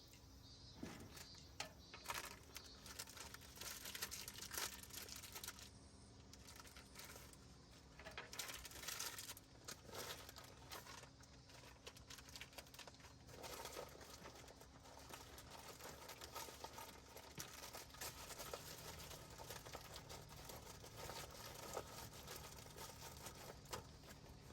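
Quiet, irregular rustling and crinkling with scattered small clicks and knocks, as of things being handled and unwrapped.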